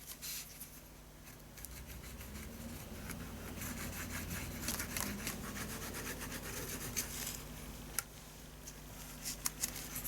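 Hands handling and rubbing cardstock, pressing a folded card piece down to stick it to itself, with scattered small crackles and a sharper click about eight seconds in.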